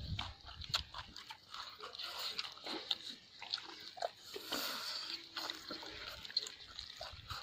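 Close-up eating sounds: chewing and lip smacking on chicken and rice eaten by hand, a rapid scatter of short smacking clicks.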